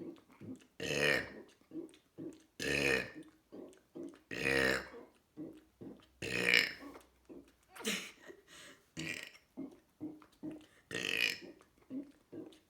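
A person burping over and over, about seven loud burps spaced every one and a half to two seconds, with short quieter sounds between them.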